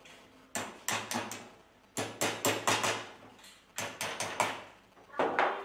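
Small hammer tapping the pins that fix brass rosettes onto a mini cannon's carriage. The light, sharp taps come in four quick bursts of three to six.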